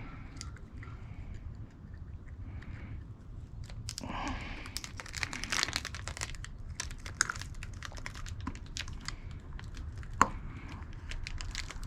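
Close handling of small plastic turn-signal parts: rustling, crinkling and scattered light clicks as an LED signal insert is turned and pushed into its housing, with one sharp click about ten seconds in.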